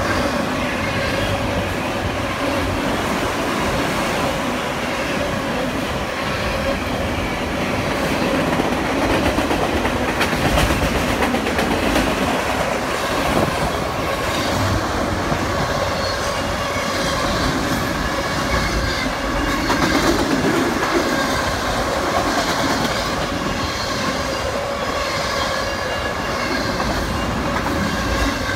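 Long freight train of empty autorack cars rolling past, with a steady rumble and clatter of steel wheels on the rails.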